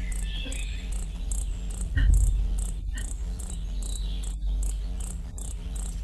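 Recorded calls of a male ruby-throated hummingbird: short, high chip notes repeated evenly, about two to three a second, played back from a sound library.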